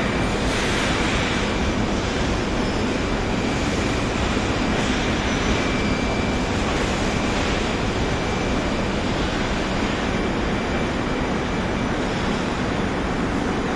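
Veneer roller dryer line with automatic feeder running: a steady industrial machinery noise with a faint high tone in it.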